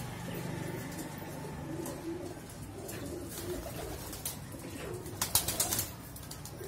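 Teddy pigeons cooing, a repeated low warbling, with a quick run of sharp clicks about five seconds in.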